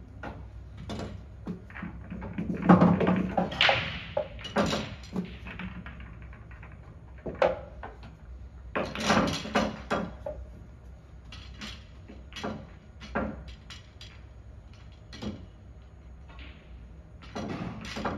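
Pool balls clacking and knocking together as they are taken from the ball-return tray of a coin-op pool table and set down on the bed, with a low rolling rumble under the busiest clusters. The knocks come at irregular intervals, thickest about three seconds in and again around nine seconds.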